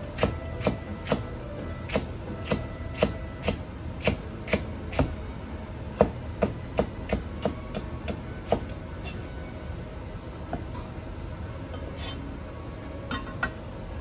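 Knife cutting green bell pepper into thin strips on a cutting board: a steady run of sharp strokes about two a second that stops about eight and a half seconds in, then a few scattered strokes near the end.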